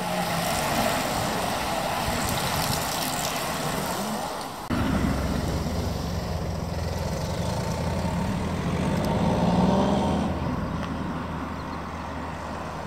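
A pack of road cyclists rides past close by: a rush of tyres on asphalt with scattered clicks. After a cut about five seconds in, a motor vehicle's engine runs steadily, rising in pitch and loudness briefly near ten seconds before settling back.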